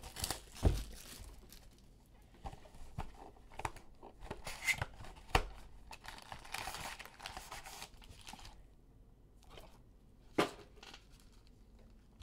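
Plastic shrink-wrap being torn and crinkled off a cardboard trading-card hobby box, then the box being opened and its foil packs handled: rustling and crinkling broken by a few sharp taps and knocks.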